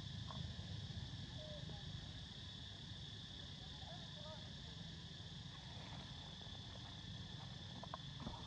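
Steady high-pitched insect drone, with a low rumble beneath it and a few faint, short squeaky calls about a second and a half in and again around four seconds.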